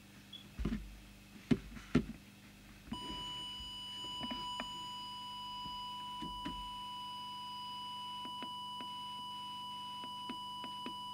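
A few sharp clicks and knocks of test gear being handled, then about three seconds in a steady test tone comes on and holds. It is the audio tone used for setting the CB transmitter's deviation.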